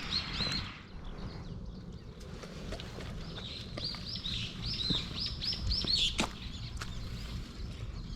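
A bird singing: short, arched chirps repeated in quick runs, a brief run at the start and a longer one of about eight notes in the middle. A sharp click follows the song.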